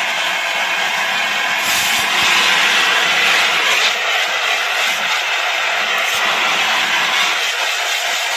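Two portable fire extinguishers discharging through their hoses onto a small fire: a loud, steady hiss that grows stronger about two seconds in.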